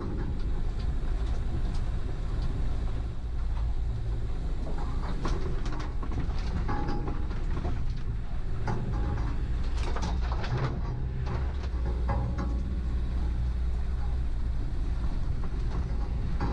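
Land Rover Defender driving slowly along a rutted dirt track: a steady low engine rumble with occasional knocks and rattles from the rough ground.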